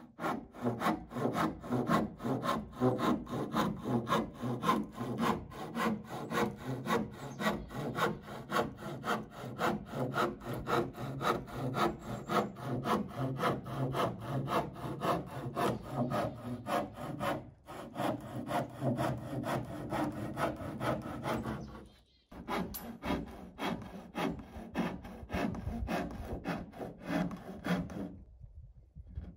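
Hand saw cutting through a wooden roof board with quick, even back-and-forth strokes, pausing briefly twice and stopping near the end.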